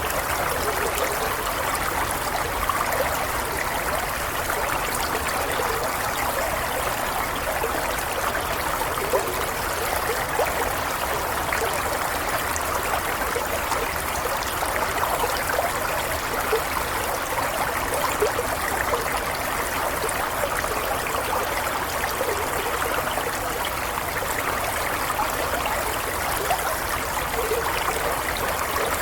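Running water flowing steadily: an even, continuous trickling and splashing with no breaks.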